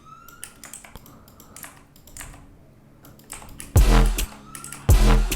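Computer keyboard and mouse clicks from editing in a music program, with a short rising tone near the start. About three and a half seconds in, loud bass-heavy electronic dance music plays back, breaks off briefly and starts again.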